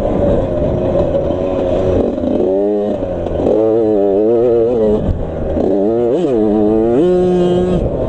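Suzuki RM85's single-cylinder two-stroke engine revving as the dirt bike is ridden, its pitch rising and falling repeatedly with the throttle, then holding steadier near the end.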